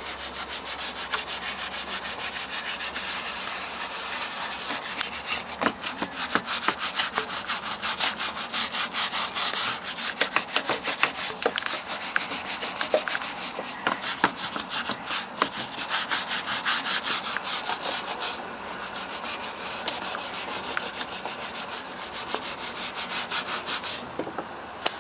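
Rapid back-and-forth hand scrubbing of the truck's parking brake parts to clean them after freeing the seize, a steady rhythm of scraping strokes that eases off a little for a few seconds near the end.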